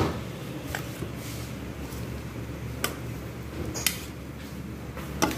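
A metal spoon clinking against a stainless steel mixing bowl while tossing chicken pieces in flour: a few sharp, irregularly spaced clicks over a low steady hum.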